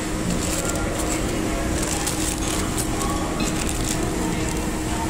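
A paper cutlery wrapper crinkling and crackling as it is handled, mostly between about two and three and a half seconds in, over a steady background din with a low hum.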